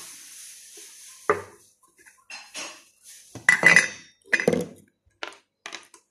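Clinks and knocks of small bottles and a small stainless steel pot being handled and set down on a wooden tabletop: about half a dozen separate clatters, the loudest a little past the middle.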